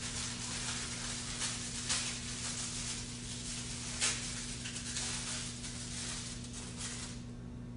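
Clear plastic wrapping crinkling and rustling as it is handled around a small bottle, with several sharper crackles. It stops about seven seconds in. A steady electrical hum runs underneath.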